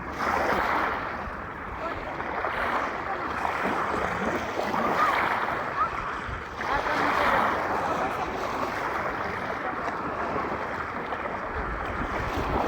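Sea waves washing onto a beach, the surf noise swelling and easing every few seconds, with wind on the microphone.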